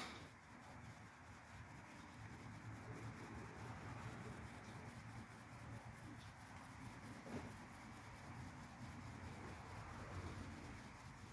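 Near silence: faint steady background noise, with a short soft knock at the very start.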